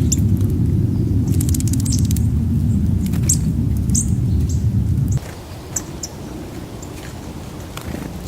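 Small birds giving short, high chirps at a feeder, with a quick run of clicks about a second and a half in. A heavy low rumble underneath is the loudest sound and stops abruptly about five seconds in.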